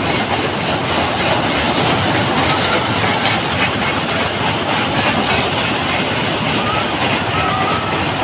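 Loud, steady fairground din: a fast-moving amusement ride's cars rumbling and clattering round their track.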